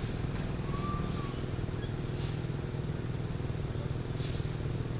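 A heavy road vehicle's engine running steadily close by, with two short hisses about two and four seconds in.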